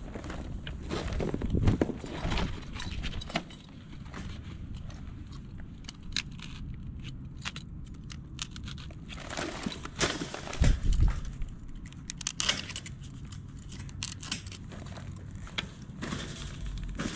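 Scattered metallic clinks and rattles of steel wire mesh and rebar being handled and stepped on, with a heavier thud about ten seconds in.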